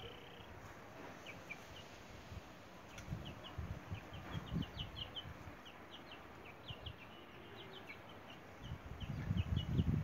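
Small birds chirping in the background, many short, high chirps scattered throughout. Low rumbles on the microphone come and go, loudest near the end.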